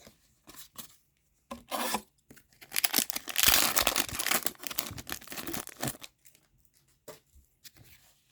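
A hockey card pack's wrapper being torn open, with crinkling; the loudest tearing comes about three to six seconds in, followed by quieter rustling of the cards.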